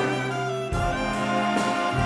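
Big-band jazz ensemble playing: saxophones, trumpets and trombones holding full sustained chords over a moving bass line, with a few drum-kit and cymbal accents.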